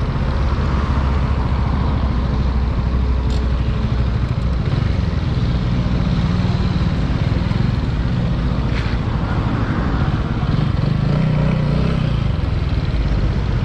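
TVS Apache 200's single-cylinder engine running steadily at low revs as the motorcycle rolls slowly.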